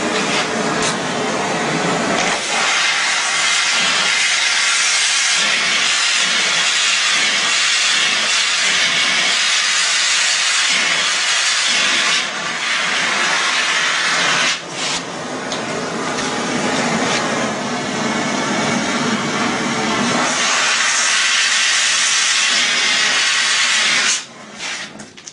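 A loud, steady hissing rush with short dips about twelve and fourteen and a half seconds in. It cuts off a second before the end.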